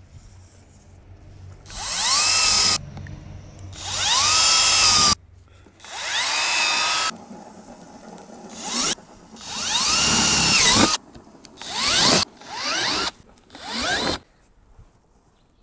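A power drill boring the marked zip-tie through-holes in a plastic bumper cover, in about eight short runs. Each run spins up with a rising whine, holds steady, then stops abruptly.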